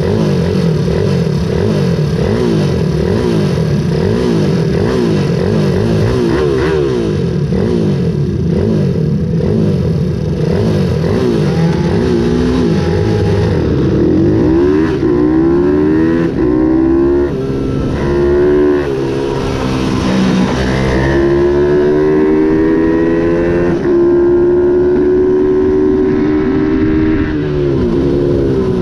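Ohvale 110 minibike's small single-cylinder four-stroke engine being revved up and down repeatedly while held on the start grid. About halfway in it pulls away, the engine note rising in a string of climbs, each cut off by a gear change.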